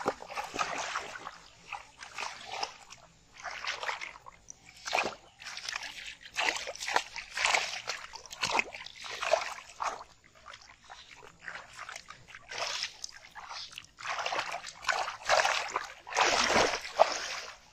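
Irregular splashing and sloshing in shallow muddy water as hands grab at fish and a caught fish thrashes at the surface, in uneven bursts with the loudest near the end.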